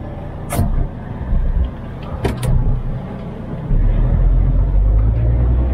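Truck engine rumbling, heard from inside the cab, with a few sharp clicks and knocks. About two-thirds of the way through, the rumble becomes much louder and heavier and stays that way.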